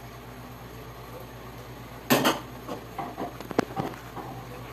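Ceramic dishes and cutlery clattering on a table: a loud clatter about two seconds in, then several lighter clinks and knocks.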